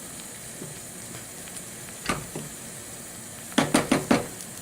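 Pots of vegetables simmering on the hob with a steady hiss. One knock against a pot about two seconds in, then a quick run of about four louder knocks near the end.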